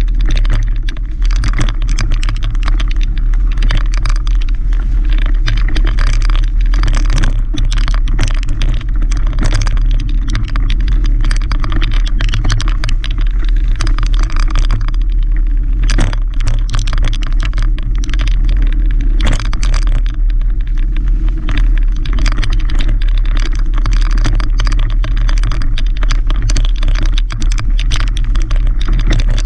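Mountain bike ridden fast over dirt singletrack, heard from a camera riding along: a steady low rumble of wind and vibration on the microphone, broken by frequent clattering knocks and rattles as the bike jolts over roots and bumps.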